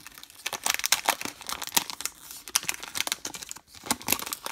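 Cellophane wrapper of a 1993 Topps baseball card pack crinkling and tearing as it is peeled open by hand. There is a dense run of sharp, irregular crackles, with a brief pause about three and a half seconds in.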